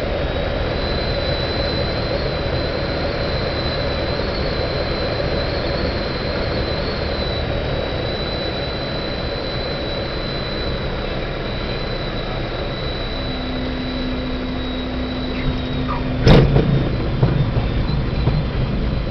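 Cockpit noise of a single-engine propeller light aircraft landing: the engine running at low power under steady wind noise, with a thin high whine throughout. Near the end, on the rollout, a low steady hum sets in, then a sudden loud thump followed by a few smaller knocks.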